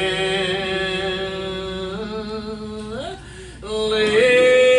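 Slow hymn singing: a voice holds one long note on 'better', breaks off briefly about three seconds in, then slides up into a new held note on 'land'.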